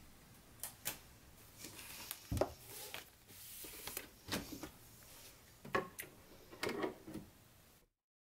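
Vinyl record sleeves being flipped through and handled: a series of clicks and knocks with soft sliding rustles, the loudest a thump about two and a half seconds in. The sound cuts to dead silence shortly before the end.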